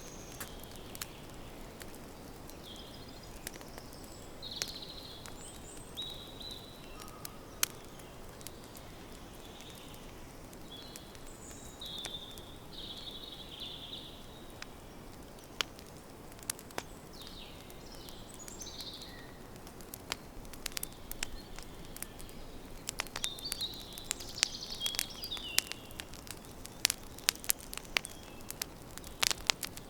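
Campfire crackling, with sharp pops and snaps that come much thicker about two-thirds of the way through, over a forest background with short bird chirps.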